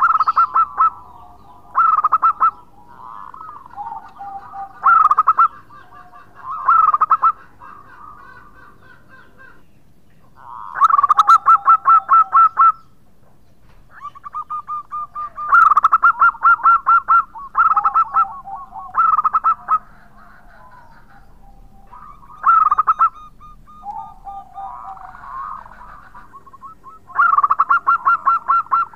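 Zebra dove (perkutut) singing: about a dozen phrases of rapid, staccato pulsed cooing. Each phrase lasts half a second to two seconds, with fainter, lower drawn-out coos in the gaps. The longest and loudest phrases come a little over a third of the way in and again just past the middle.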